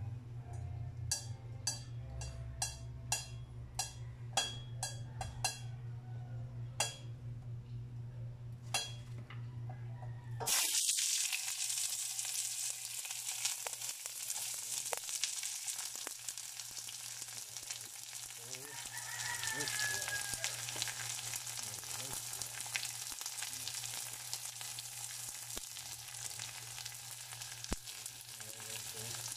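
A series of sharp ticks over a low steady hum, then about ten seconds in sliced onions go into a hot stainless steel saucepan on a gas burner and start to sizzle, a steady frying hiss that carries on to the end.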